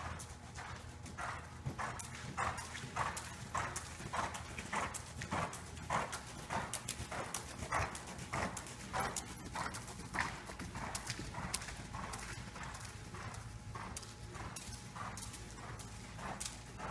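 Horse's hooves beating in a steady two-beat trot on soft arena footing, about two to two and a half muffled thuds a second.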